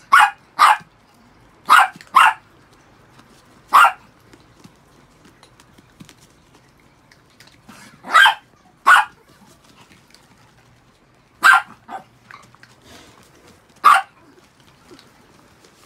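Chihuahuas barking: about nine short, sharp barks, several in quick pairs, spread irregularly with gaps of a few seconds.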